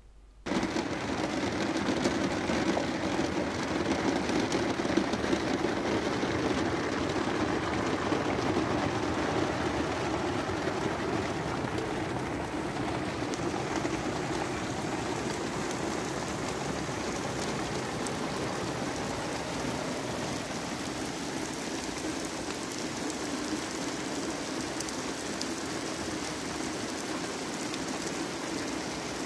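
Heavy, steady rain, heard from inside a camper van through an open window. It starts suddenly about half a second in and eases off slightly toward the end.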